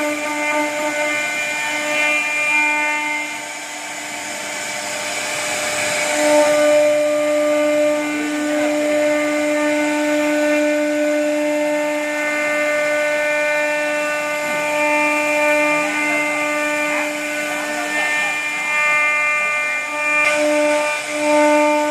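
CNC router spindle whining at a steady pitch while its bit carves a wooden door panel. The cutting noise swells and fades as the bit moves through the wood.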